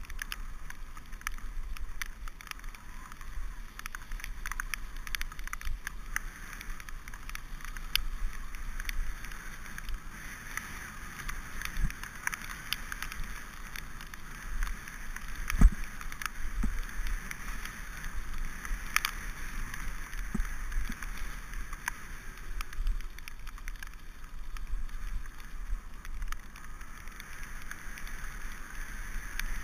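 Mountain bike rolling over a wet dirt and gravel track, heard from a bike-mounted camera: steady tyre and rushing noise with frequent small rattles and knocks over bumps, and one louder knock about halfway through.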